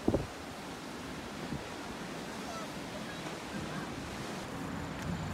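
Sea surf washing steadily onto the shore, with wind buffeting the microphone and a brief low bump right at the start.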